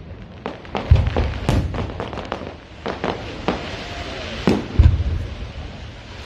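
Fireworks display going off: repeated sharp bangs and crackles, with a deep boom about a second in and another near five seconds in.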